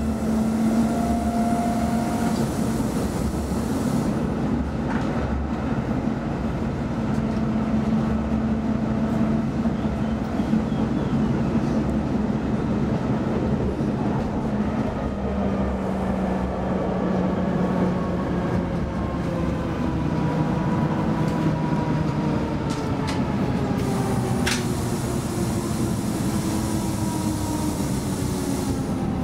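Interior sound of an M29 tram running: a steady hum of the traction motors and wheels on the rails. In the second half the motor whine falls steadily in pitch as the tram slows, and there is a sharp click near the end.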